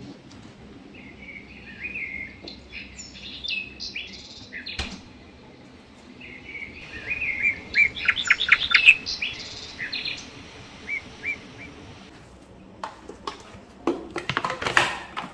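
Small birds chirping and twittering in short, quick phrases, busiest around the middle. Near the end comes a rustling of a roll of baking paper being handled.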